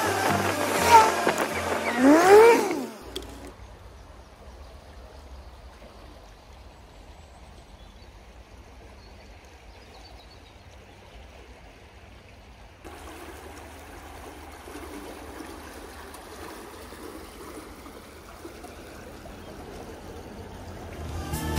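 Quiet, steady rushing of a fast-flowing river, with a low rumble under it. Background music fades out about three seconds in and comes back right at the end.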